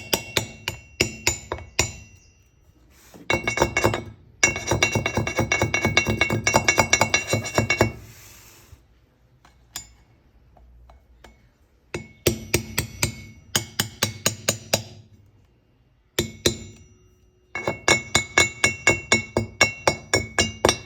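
Bursts of rapid metal-on-metal taps, several a second, each leaving a short ringing tone, with brief pauses between bursts: the sprocket's locking tabs being knocked up against the bolt heads with a screwdriver.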